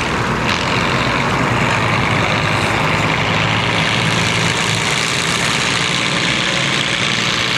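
Farm-class pulling tractor's diesel engine running hard and steady under heavy load as it drags a weight-transfer sled down the track.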